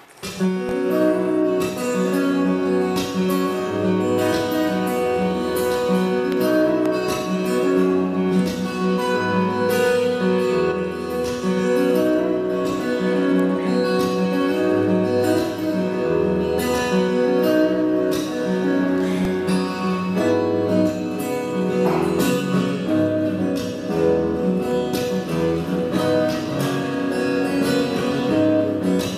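Solo acoustic guitar playing an instrumental piece: plucked melody notes ringing over low bass notes, with sharp percussive strokes on the strings throughout. The playing starts about half a second in, after a brief lull.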